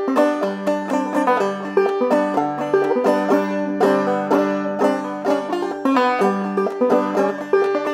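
Banjo played clawhammer style: a brisk, even stream of plucked notes in an old-time tune, with one high note recurring throughout.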